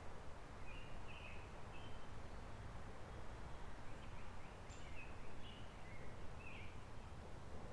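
Steady rush of a flowing forest creek with birds chirping over it: short high chirps about a second in, then a cluster of them from about four to seven seconds in.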